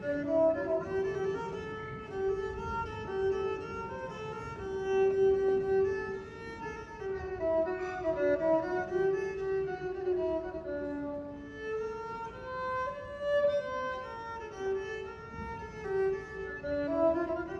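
Background music: a slow fiddle melody of held, bowed notes.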